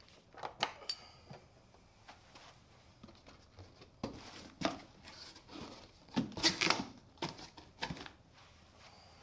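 Unboxing handling noises: scattered knocks and clicks with short bursts of rustling, as packaging and parts are handled. The loudest cluster of knocks comes a little past the middle.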